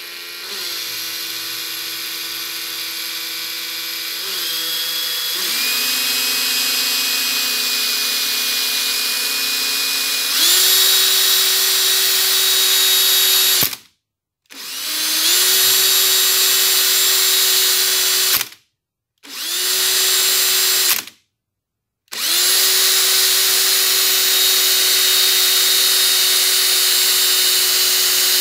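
Cordless drill spinning a brass tap spindle held in its chuck against steel wool for polishing. The motor whine changes speed a few times in the first ten seconds, then the drill stops and restarts three times.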